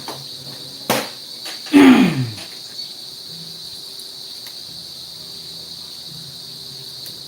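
Steady high-pitched chirring of crickets, with a sharp click about a second in and, just before two seconds, a brief loud sound that drops quickly in pitch.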